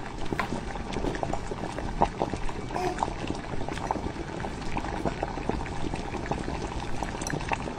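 Broth boiling in a divided stainless-steel hot pot: steady bubbling with many small pops.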